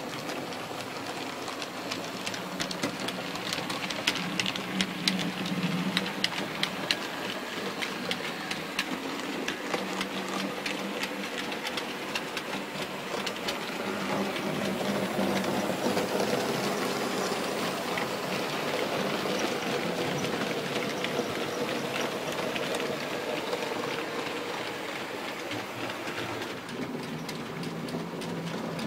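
Model railway train running: the small electric motor of an OO-gauge Bachmann SECR C class locomotive whirring steadily as the wheels of the locomotive and its coaches click irregularly over rail joints and pointwork, the clicks sharpest a few seconds in.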